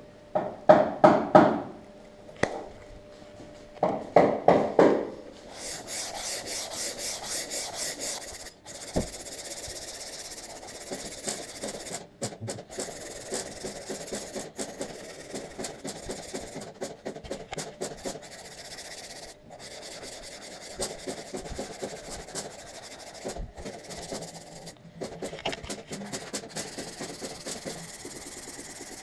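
150-grit sandpaper on a hand sanding block rasping back and forth over the body filler on a plastic bumper, smoothing the cured filler. Two bursts of louder scraping come in the first five seconds, then a run of quick, even strokes, about four or five a second at first and looser later.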